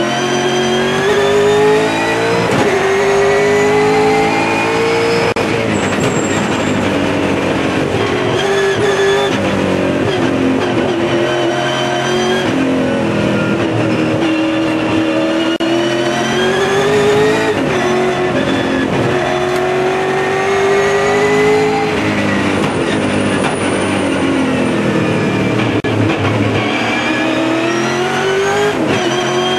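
V8 touring car race engine heard from inside the cabin under hard driving. Its pitch climbs repeatedly, breaking sharply at each upshift, and falls away between climbs as the car slows for corners.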